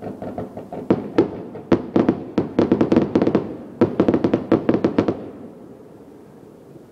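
Aerial firework shells bursting in quick succession: lighter rapid pops at first, then a dense volley of loud bangs, which dies away into a low rumble about five seconds in.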